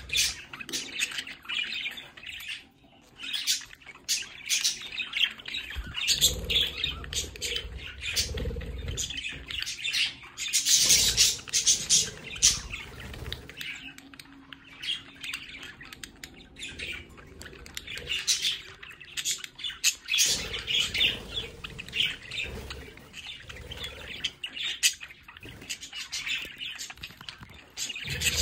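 A small flock of budgerigars chattering, chirping and squawking without pause, with a louder stretch of calls about eleven seconds in.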